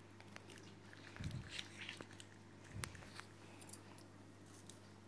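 Faint scattered light clicks and two soft low thumps about a second and a half apart, over a steady low hum.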